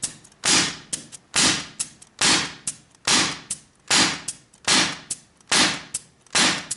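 Homemade pneumatic air rifle with a quick exhaust valve fired about eight times in quick succession, roughly once a second. Each shot is a sharp burst of air that tails off in a short hiss, with small trigger clicks between shots. The air reservoir is being emptied and is down to low pressure, which gives weak shots.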